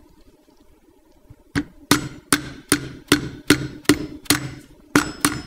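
A small mallet tapping the pivot axle back into a Tektro hydraulic disc brake lever: about ten sharp taps at a steady pace, a little over two a second, starting about a second and a half in.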